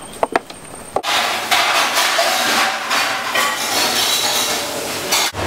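A couple of sharp clinks of cups or tumblers on a table, then, after an abrupt switch about a second in, a loud, dense clatter of dishes and metal utensils in a busy kitchen, which cuts off suddenly near the end.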